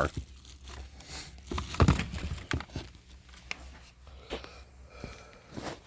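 Handling noise from picking up and handling a handheld vacuum: scattered light clicks and knocks, one louder knock about two seconds in, over a faint steady low hum.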